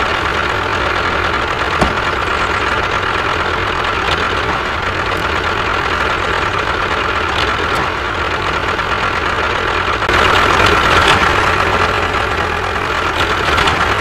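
Tractor engine running steadily with a low chug. It gets a little louder about ten seconds in.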